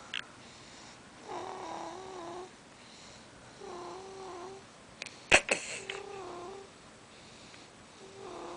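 Small, high-pitched snores from a sleeper, each about a second long and coming roughly every two seconds, with a slight waver in pitch. A single sharp click a little past halfway is the loudest sound.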